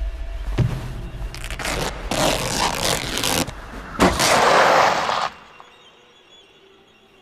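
A low rumbling drone gives way to loud bursts of harsh noise that swell over a few seconds, then cut off suddenly about five seconds in.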